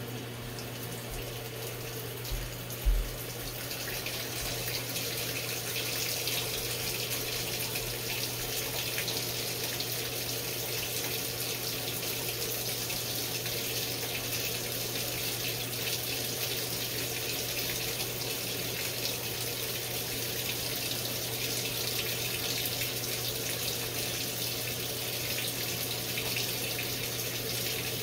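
Top-load washer filling with water: a steady rush of water into the tub over a low, even hum. Two low thumps come about two and three seconds in.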